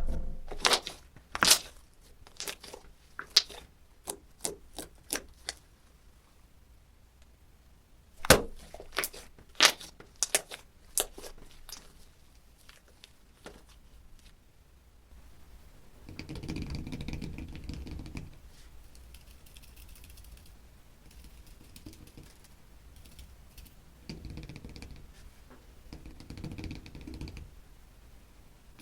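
Slime being pressed and poked by hand. It gives two runs of sharp clicking pops in the first half, then later two stretches of softer, wetter squishing.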